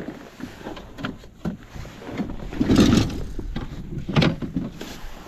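Uneven knocks, thumps and rustling on a kayak as a freshly caught bass is handled, with two louder clunks, one near the middle and one later.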